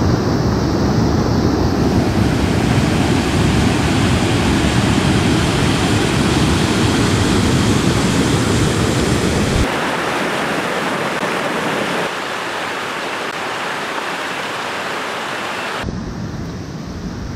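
A swollen, muddy river in spate after heavy rain, rushing over rocks in rapids: a loud, steady roar of whitewater. It thins out about ten seconds in.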